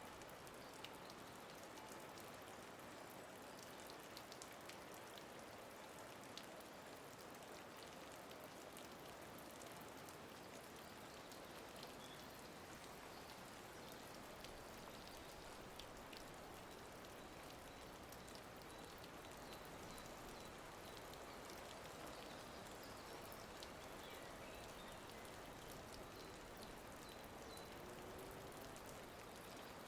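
Faint, steady rain with scattered light patter.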